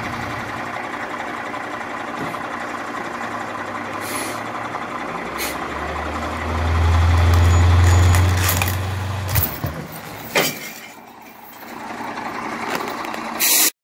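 Heavy military diesel truck engine idling, then working harder for about three seconds from around six seconds in as it drags a large tyre on a tow strap. Two sharp knocks come near the end of the pull, after which the engine eases back.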